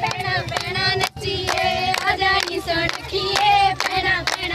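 A group of women singing Punjabi boliyan together to quick, steady hand clapping for giddha, about three to four claps a second.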